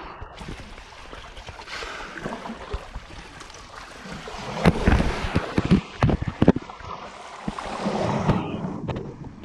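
Lake waves washing and wind on the microphone, with a run of sharp knocks and scuffs about halfway through as someone clambers down rocks.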